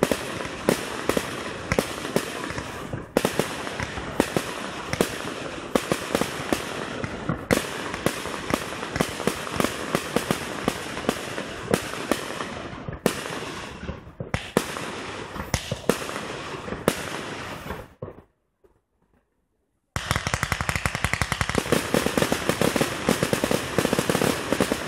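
Fireworks display: aerial shells bursting one after another with sharp bangs and crackling. The sound drops out to silence for about two seconds some eighteen seconds in, then comes back as a dense, fast crackle with more bangs.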